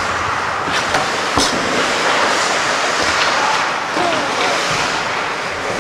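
Ice hockey game in an indoor rink: a steady noisy hiss of skates and play on the ice, with two sharp clacks of stick or puck about a second in and faint shouts.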